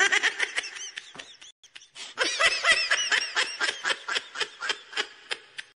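Edited-in laugh track: rapid bursts of giggling laughter. It dies away about one and a half seconds in, then picks up again louder.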